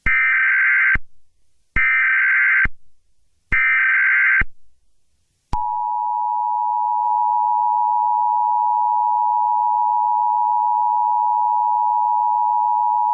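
Emergency Alert System tones: three short bursts of buzzy data tones (the SAME header) about a second apart, then a long, steady two-tone attention signal starting about five and a half seconds in. Together they mark the start of an emergency alert broadcast.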